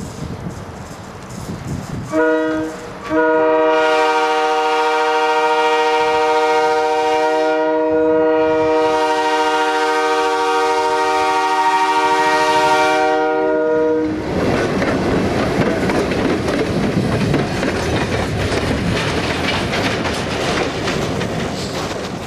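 Air horn on an EMD FP9 diesel locomotive: one short blast about two seconds in, then one long blast held for about eleven seconds. After the horn stops, the rumble of the passing train runs on.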